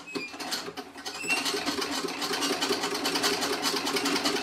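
Antique Singer 27 vibrating-shuttle treadle sewing machine stitching: a few slow separate clicks, then about a second in it speeds up into a steady, rapid, even clatter.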